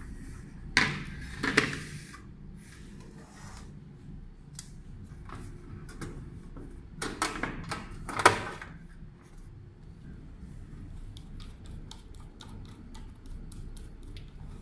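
Handling of a security-camera recorder's metal case and parts: knocks and clatter, loudest about a second in and again around seven to eight seconds in, then a run of light quick ticks near the end.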